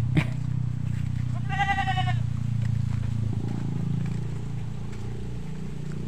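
Wind buffeting the microphone with a steady low rumble, and about a second and a half in, a single high bleat lasting under a second.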